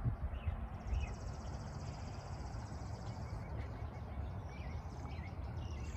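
Songbirds in the background: one high, rapid trill lasting about two and a half seconds and a few short chirps, with another trill starting near the end. A low, steady rumble runs underneath.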